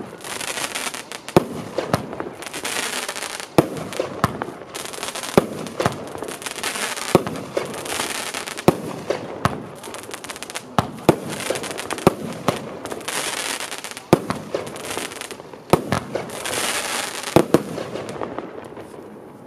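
Evolution Fireworks 'Shape Shifter' 19-shot fireworks battery firing in sequence: sharp bangs about one a second, each followed by a hiss, fading out near the end.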